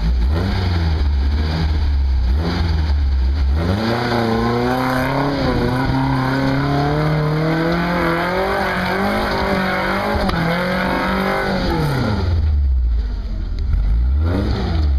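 Lifted Toyota pickup's engine revving hard under load as the truck climbs a steep, rutted dirt bank: a low idle with small blips, then about four seconds in the revs jump and climb slowly for about eight seconds before dropping back to idle, with one short rev near the end.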